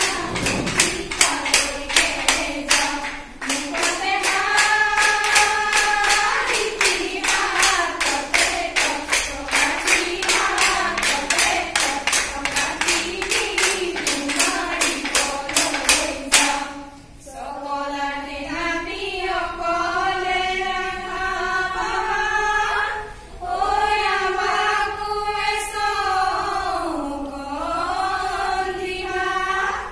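Group of women singing a Jeng Bihu song together over steady rhythmic hand-clapping. About 17 seconds in the clapping stops and the unaccompanied singing carries on.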